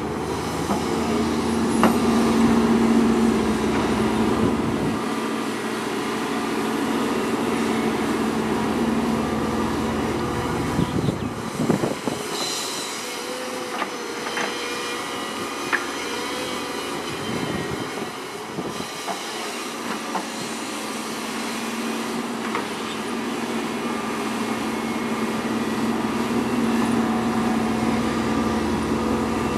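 Diesel engines of a Hyundai 210LC-9 crawler excavator and a Volvo articulated dump truck running steadily as the excavator's hydraulics swing and dump loads of sand, with a few sharp knocks. The deep rumble drops away for a stretch in the middle and then returns.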